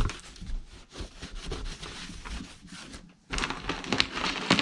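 A hand rubbing and scrubbing at a scorched tyre mark on a painted wooden board, wiping it off. About three seconds in it pauses, then louder handling noise follows as the wiring is picked up.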